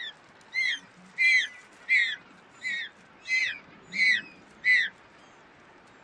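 An African penguin chick giving its begging call while being fed: about eight short, high-pitched peeping calls, roughly one every two-thirds of a second, the first one faint.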